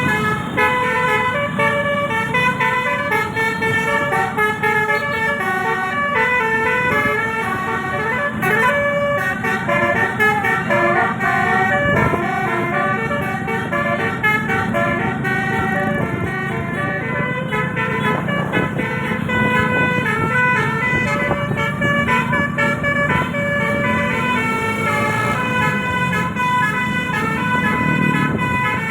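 Telolet bus horn: a bank of eighteen roof-mounted air-horn trumpets playing a fast melody of chord-like notes that change several times a second, over a low rumble.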